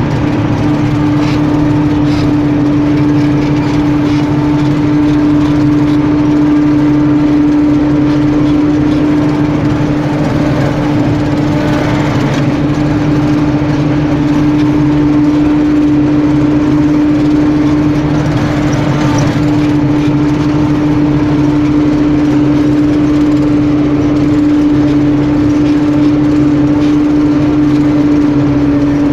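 Farm machinery engine at a wheat harvest running steadily at constant speed, with a strong, unchanging hum.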